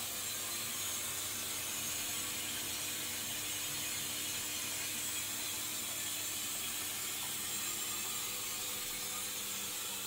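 Candy Aquamatic Tempo Aqua 2D 1140 compact front-loading washing machine running a wash cycle: a steady, even hum with a light hiss over it.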